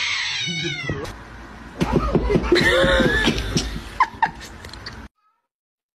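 Cats yowling in drawn-out, wavering cries, first one long cry, then after a short lull a second, louder bout of squalling with a few sharp clicks. The sound cuts off abruptly about five seconds in.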